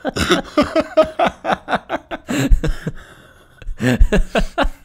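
Two men laughing in a run of quick chuckles, easing off briefly before a fresh burst of laughter near the end.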